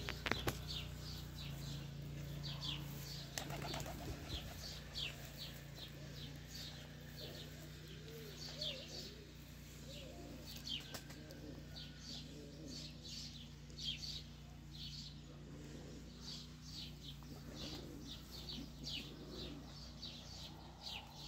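Domestic pigeons in a loft: low cooing in the middle, with a few wing flaps near the start. Short high chirps repeat throughout over a steady low hum.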